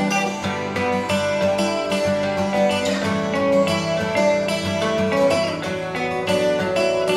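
Instrumental passage of a song: strummed guitars with a steady rhythm and no singing.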